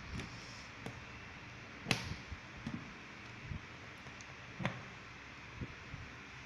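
A few light clicks and taps of multimeter test probes being handled and touched onto the test-point terminals of an amplifier trainer board, the loudest about two seconds in, over a steady faint hiss.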